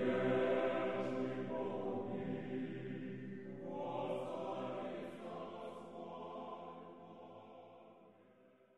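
Recorded choir singing slow, sustained chant-like chords, with a new phrase entering about four seconds in, then fading out near the end.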